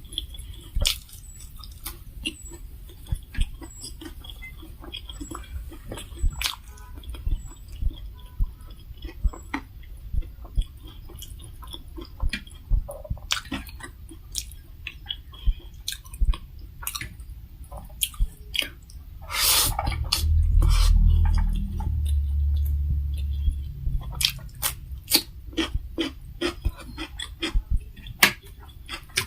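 Close-miked eating sounds: chewing and mouth smacks with frequent small clicks, as a rice-and-curry meal is eaten. About twenty seconds in comes a louder noisy burst, then a few seconds of low rumble.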